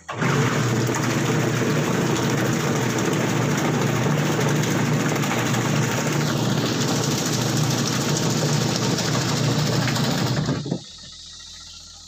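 Micromatic top-loading washing machine running its wash cycle, the motor driving the pulsator and churning the sudsy water in a loud, steady noise. It starts abruptly and cuts off about eleven seconds in.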